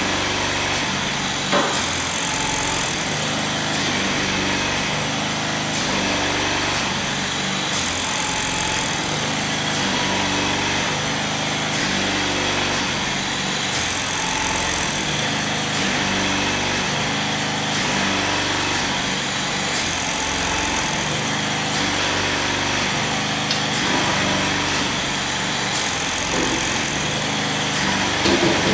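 Steady mechanical running of a feed hopper's air-operated shaker (Thayer Scale Bridge Breaker) and its feed machinery, with a high hiss that steps up and down about every six seconds and a short knock about a second and a half in.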